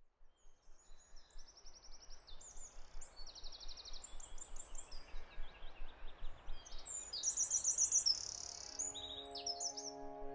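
Several songbirds chirping and singing fast high trills over a steady hiss. A soft, sustained music chord fades in near the end.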